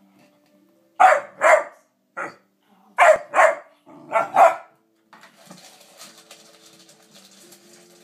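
A dog barking at its food, about six sharp barks mostly in quick pairs over the first few seconds, then faint crunching and clinking as it starts eating kibble from a steel bowl.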